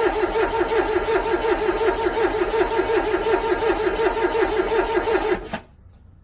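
Car engine cranking on its starter motor in the freezing cold, a steady rhythmic churn of about five or six beats a second without catching. The cranking cuts off suddenly about five and a half seconds in, the engine still not started.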